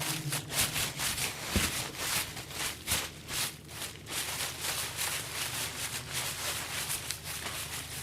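Foley recording: a quick, uneven run of rustling, scraping strokes, several a second, over a low steady rumble.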